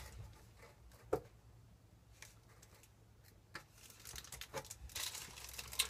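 Faint handling of box contents and packaging: a few light taps and clicks, then rustling of plastic and paper packaging near the end.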